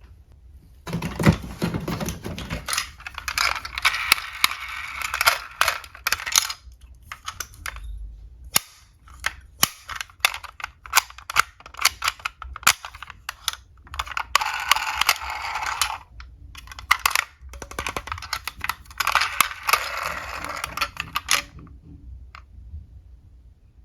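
Small diecast toy cars clicking and clacking as they knock together, with three stretches of rattling, rolling noise from their little wheels.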